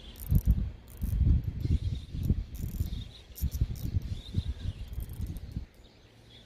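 Spinning fishing reel being worked by hand while retrieving and readying a cast, its mechanism whirring faintly. Irregular low rumbling is the loudest sound and stops about two-thirds of the way through.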